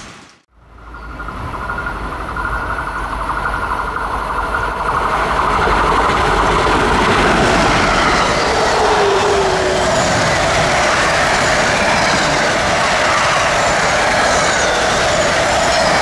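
A train approaching on the line, its wheel and rail noise building over the first five seconds or so, then running steadily loud as it comes by.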